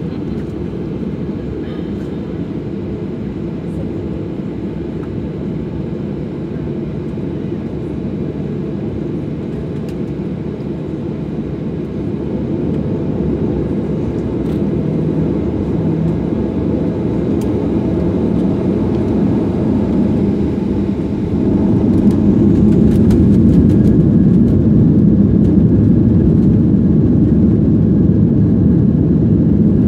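Cabin noise of a Boeing 737-800 with its CFM56-7B jet engines running while taxiing, a steady low rumble. It grows louder in two steps, a little about twelve seconds in and more sharply a little after twenty seconds, as the engines are throttled up.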